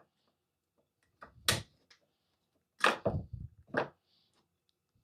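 Cable connectors being popped off the old on/off switch of a Festool vacuum by hand: several sharp clicks and knocks with gaps between them, the loudest about a second and a half in, near three seconds and near four seconds.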